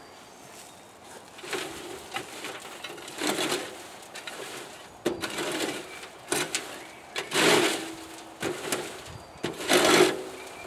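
Steel shovel scraping and rubbing compost back and forth across a wooden-framed wire-mesh sifting screen, in repeated strokes a second or two apart, to push it through the mesh.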